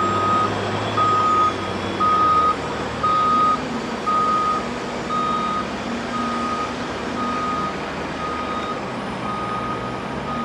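A heavy log-handling machine's reversing alarm beeping about once a second at one steady pitch, over the steady running of its diesel engine as it backs up.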